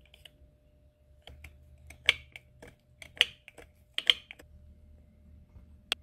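Small-parts handling noise at a pedal-tractor wheel hub: a plastic-wrapped hubcap is worked over the axle end, giving a run of light clicks and crinkles. The clicks come loudest three times, about two, three and four seconds in, with one sharp click near the end.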